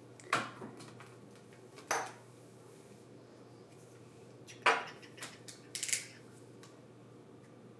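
Sharp plastic clacks and taps, about six separate knocks with the loudest near the middle: Play-Doh tubs and plastic playset pieces being handled and set down on a table.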